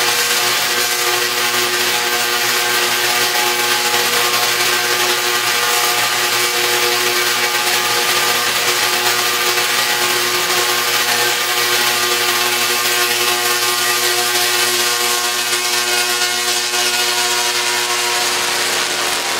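A pair of large Tesla coils firing, their arcs streaking from the two toroids into the air and across to each other, giving a loud, steady, pitched buzz with a sizzling hiss over it.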